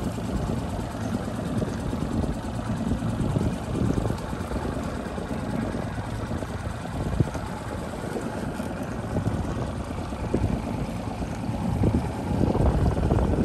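Wind buffeting the microphone outdoors: an uneven low rumble that rises and falls in gusts.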